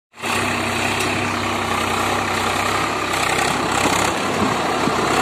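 Swaraj 744 XT tractor's diesel engine running steadily with a deep even hum; about four seconds in the lowest part of the note drops away.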